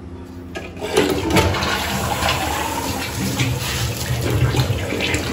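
A newly installed ceramic toilet flushing: about a second in, a rush of water starts and keeps swirling through the bowl. This is the test flush that checks the fresh installation for leaks before the base is sealed.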